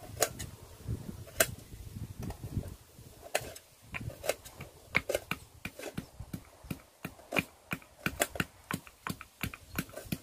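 Sharp, irregular clicks and taps of a knife and metal utensils against steel plates as small onions are peeled and cut by hand, coming more often in the second half.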